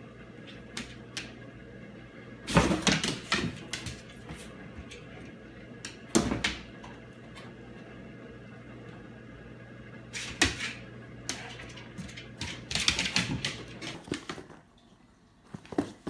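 Cardboard box knocked and scuffed from inside and out, in four short bursts of rustling thumps, over a steady low hum.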